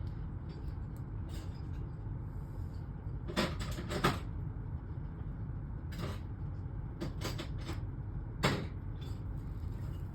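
Steady low rumble with a handful of short, sharp clicks and knocks scattered through it.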